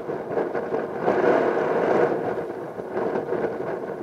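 Boeing 737 twin jet engines running with a rushing roar as the airliner rolls along the runway, swelling about a second in and easing toward the end.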